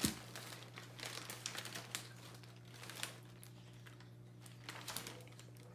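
Glossy paper catalogue pages being handled and turned: scattered rustles, crinkles and light taps, with a sharper knock right at the start. A steady low hum runs underneath.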